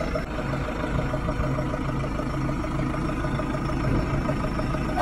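Forklift engine running steadily with a fast, even pulse.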